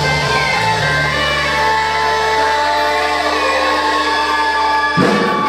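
Live rock band with horns and electric guitar holding a long final chord over a steady bass note, closed by one sharp full-band hit near the end: the song's ending.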